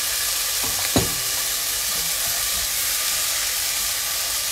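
Frozen peas sizzling on high heat in a pan with a little ghee, ginger and onion, being stirred with a silicone spatula; a single sharp knock of the spatula against the pan about a second in.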